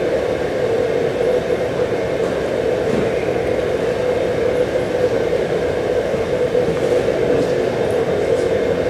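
Courtroom bench-conference masking noise: a loud, steady hiss with a hum-like tone running through it, switched on so that the private sidebar at the judge's bench cannot be overheard.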